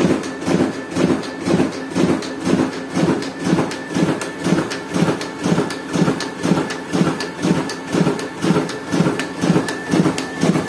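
Digital duplicator printer running a print job. Its drum and paper feed pulse in a steady rhythm of about two beats a second, one for each sheet fed through and thrown onto the output tray. A faint steady high tone runs underneath.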